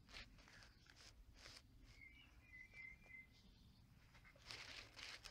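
Near silence: faint outdoor background with a few faint high chirps about two seconds in and faint rustling near the end.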